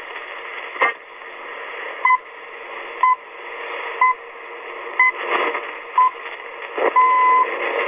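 Radio time-signal pips on a shortwave broadcast: five short beeps about a second apart, then a longer final beep, over steady shortwave hiss, with a crackle of static near the start.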